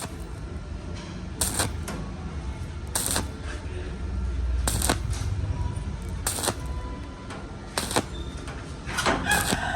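Sharp clicks, about one every second and a half, over a steady low rumble, with brief voices near the end.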